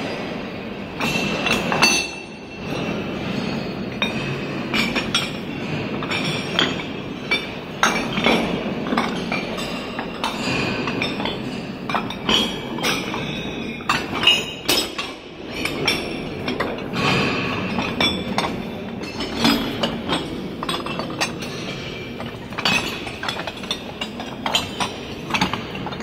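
Heavy cut-steel face plates of the Shalekhet installation clanking and clinking against each other as they are walked on, many irregular metallic clanks with ringing tails, sounding in a tall concrete hall.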